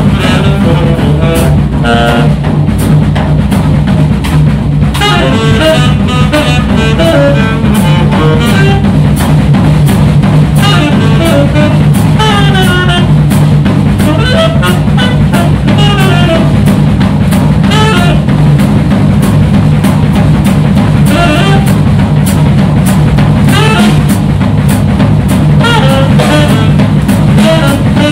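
Live jazz trio: saxophone playing fast improvised runs in phrases, over walking double bass and a drum kit with frequent sharp snare and cymbal strikes.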